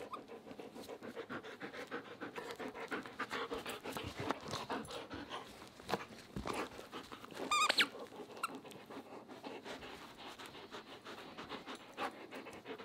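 German Shepherd panting fast and hard while playing tug-of-war with a plush toy, with one short high squeak a little past halfway.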